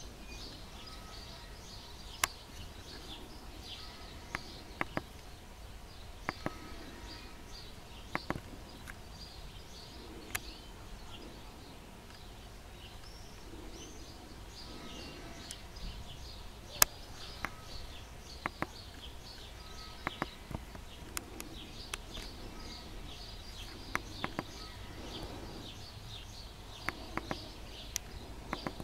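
Small birds chirping continuously, with scattered sharp clicks and a steady low rumble underneath.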